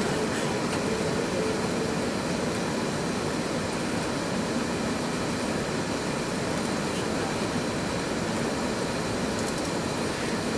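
Steady cabin noise inside an Airbus A380-861 taxiing on the ground: a constant rushing hiss of cabin air conditioning and the four Engine Alliance GP7270 engines at taxi power, over a low rumble.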